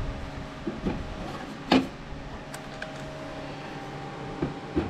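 Light knocks and clicks as a tumbler is handled and seated in a laser engraver's rotary attachment, the sharpest knock a little under two seconds in, over a steady background hum.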